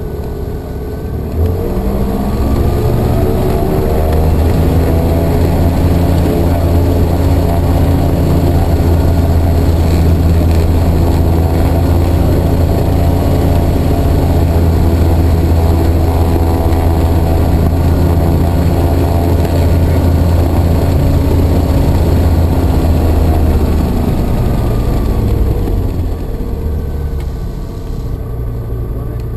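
A TL Sting light aircraft's Rotax 912 engine and propeller, heard from inside the cockpit. About a second and a half in the engine is opened up from idle to a steady high power, held there for some twenty seconds, then throttled back to idle near the end. With the aircraft standing still, this is the pre-take-off engine run-up.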